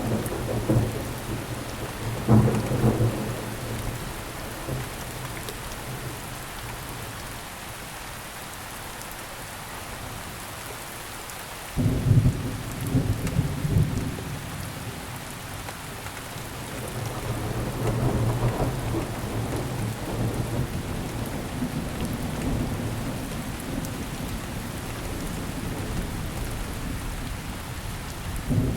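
Steady rain with rolling thunder. A rumble fades over the first few seconds, a sudden loud clap of thunder comes about twelve seconds in, and another long rumble follows a few seconds later.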